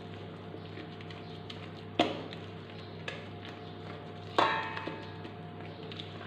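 Silicone spatula folding cream in a stainless steel bowl: soft scraping and light taps, with two sharper knocks against the bowl, about two seconds in and again after about four and a half seconds. The second knock leaves the metal bowl ringing. A steady low hum runs underneath.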